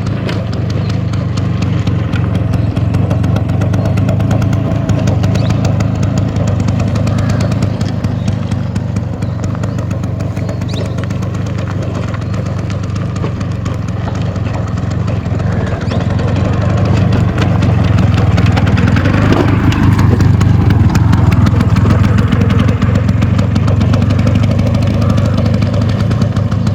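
Bajaj Chetak scooter's two-stroke single-cylinder engine running with a steady fast putter. It grows louder about two-thirds of the way through, then eases slightly.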